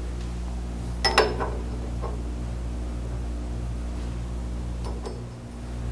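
Metal clinks of a hex key on the work-stop bolt of a 4x6 horizontal metal-cutting bandsaw: a sharp double clink about a second in and lighter ones near two and five seconds. Under them runs a steady low electric hum.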